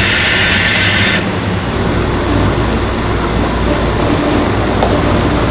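Industrial deep fryer with rotating stirring arms frying snack chips: hot oil sizzling and bubbling over a steady low machine rumble. A higher hiss cuts off about a second in.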